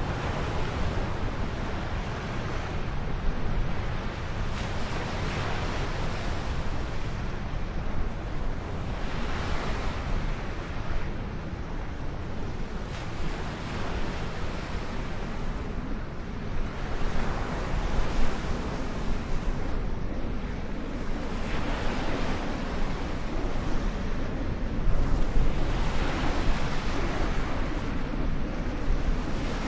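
Wind buffeting the microphone in gusts that swell every few seconds, over a steady low rumble.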